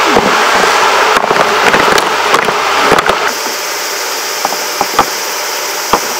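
Worksite machinery running with a dense clatter of sharp knocks for about three seconds, then a sudden change to a quieter steady hum with single sharp knocks every half second to a second.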